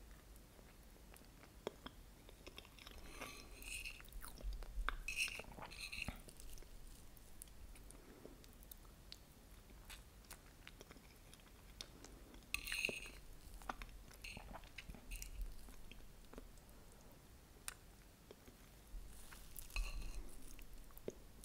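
Close-miked mouth sounds of eating soft New York cheesecake with caramel sauce: wet chewing, sticky clicks and smacks, coming in bouts of a few seconds with quieter pauses between them.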